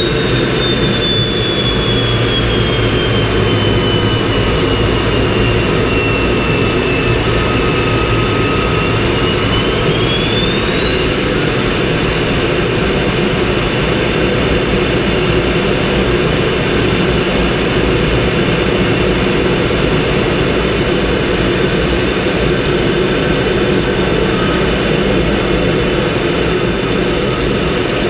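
MiG-15's centrifugal-flow turbojet heard from inside the cockpit in flight, under a steady rush of airflow. The turbine whine falls slowly for the first several seconds, then rises about ten seconds in as the engine speeds up, and holds high and steady, dipping slightly near the end.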